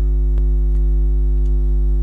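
Loud, steady electrical hum with a stack of even overtones, a recording fault that buries the other sound. A few faint clicks sound over it, about a third of a second in, near the middle and late on.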